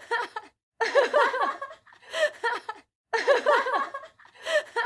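A person laughing in short bursts of quick 'ha-ha' pulses, with brief silent gaps between the bursts; the same laugh recurs about every two and a third seconds, as if looped.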